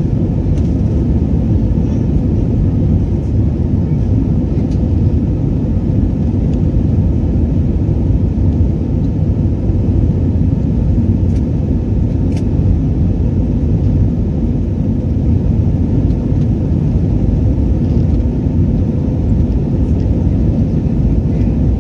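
Steady, low-pitched cabin noise of an Airbus A321 in flight: its jet engines and the airflow over the fuselage, heard through the cabin from a window seat.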